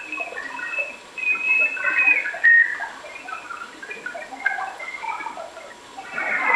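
Radio receiver audio through a Yaesu SP-2000 communications speaker: thin, narrow-band chirps and whistling tones. A held whistle runs through the first two seconds, followed by broken chirping fragments.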